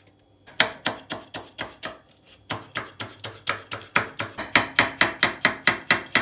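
Chef's knife chopping green peppers, then mushrooms, on a wooden cutting board: a steady run of sharp knocks of the blade on the board, about four a second, starting about half a second in and getting a little quicker toward the end.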